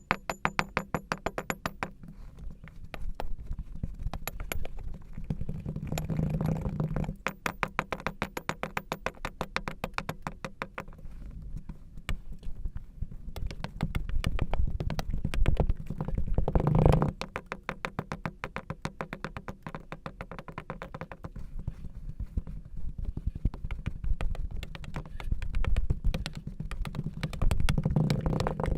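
Kinetic sand squeezed and dropped by hand: fast runs of fine crackling clicks over soft dull thuds, with a louder squish about halfway through.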